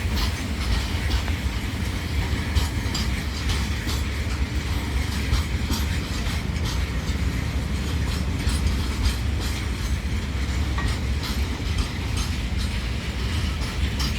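Goods train rolling past at steady speed: a continuous low rumble of wheels on rail with frequent sharp clicks as the wagon wheels cross rail joints.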